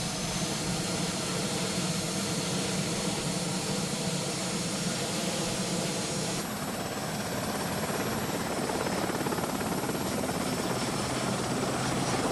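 Sea King Mk7 helicopter running on the ground, its turboshaft engines and main rotor giving a steady whine and hum. About six seconds in the sound shifts and a high whine comes in, and it grows slightly louder toward the end.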